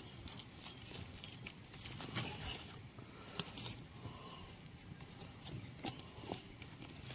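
Faint outdoor ambience with irregular soft taps and clicks.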